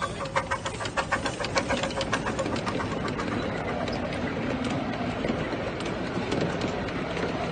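Miniature steam locomotive passing close by, its exhaust beating rapidly at about four to five beats a second. From about three seconds in, the beats give way to the steady rumble and clatter of passenger carriages rolling by on the track.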